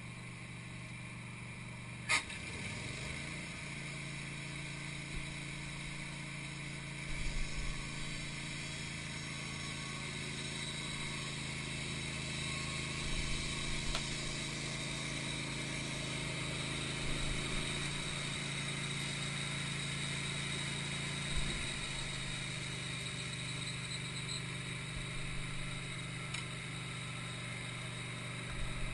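Wood-Mizer LT15 portable sawmill running steadily: a continuous motor hum with a sharp click about two seconds in.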